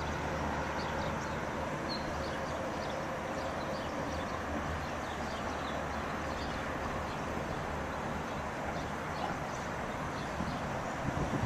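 Outdoor ambience: birds chirping here and there in the trees over a steady low hum.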